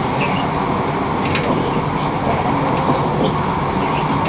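Steady running noise of a passenger train in motion, heard from inside the carriage.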